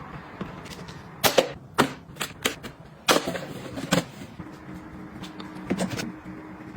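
Irregular sharp clicks, taps and knocks of hard objects being handled and set down, a few louder knocks among lighter taps, with a faint steady hum in the second half.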